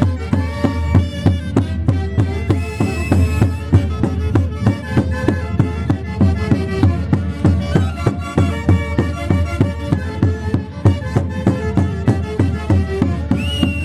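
Orquesta típica from the Huancayo region playing a santiago: several melody instruments over a steady, even drum beat.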